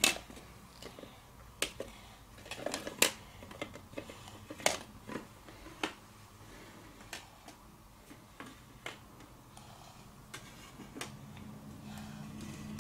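Shiny hard toy elephant figures clicking and knocking against each other and the wooden floor as they are set down and nudged into a ring by hand. About a dozen scattered sharp taps with quiet between them, the loudest about three seconds in and again just before five seconds.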